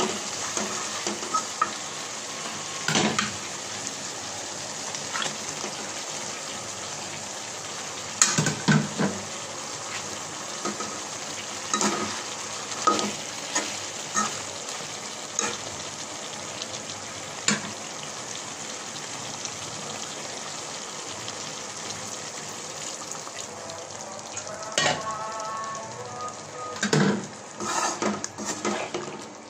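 Sponge gourd and fish curry sizzling steadily in a pan while a perforated metal spatula stirs it, scraping and knocking against the pan every second or two. The knocks come thickest about eight seconds in and again near the end.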